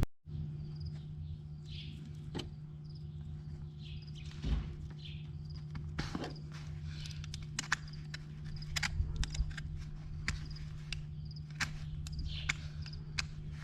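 A steady low mechanical hum, with scattered sharp clicks and light knocks throughout.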